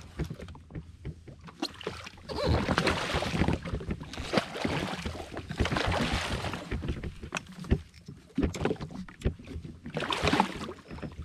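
Water splashing in spells as a hooked snapper is brought to the surface and netted beside a jet ski, with many short knocks and clicks of rod and landing net against the hull.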